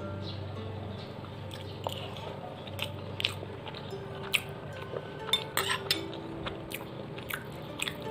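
Scattered sharp clicks and crackles from a metal spoon and the banana-leaf wrapper of steamed black sticky rice with durian, coming more often in the second half.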